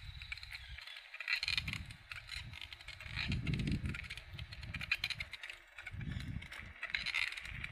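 Bicycle rolling along, rattling and ticking, with irregular low rumbles coming and going.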